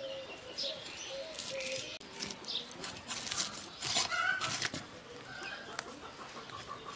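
A rohu fish being scaled against a boti, a fixed curved blade: repeated short rasping scrapes as the scales are pulled off, at an uneven pace.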